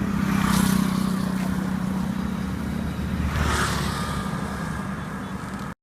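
Yamaha YZF-R3's parallel-twin engine running through its stock exhaust, a steady low rumble. Two brief swells of hiss come over it, about half a second in and again about three and a half seconds in, and the sound cuts off suddenly just before the end.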